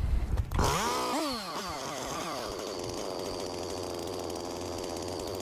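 Gasoline chainsaw comes in about half a second in, revving up and down, then runs steadily at high speed as it cuts off the top of a felled tree.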